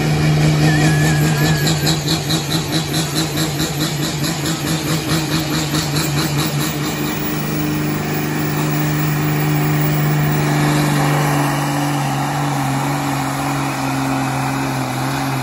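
Ford 8600 tractor's diesel engine working under heavy load as it drags a weight-transfer sled. The sound throbs rhythmically for the first several seconds, then holds steady.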